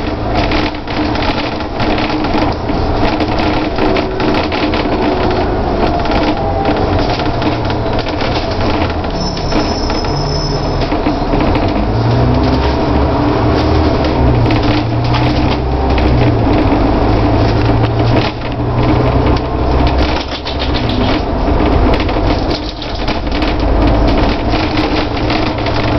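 Double-decker bus under way, heard from the top deck: the diesel engine running with a low note that shifts up and down in pitch several times, over road noise and a constant rattle of the bodywork.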